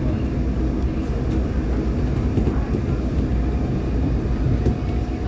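Interior running noise of a WMATA 2000-series Metrorail car travelling at speed: a steady low rumble of wheels on rail, with a faint steady whine.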